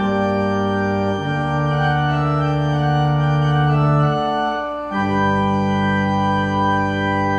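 Church organ playing long held chords, moving to a new chord about a second in and again about five seconds in.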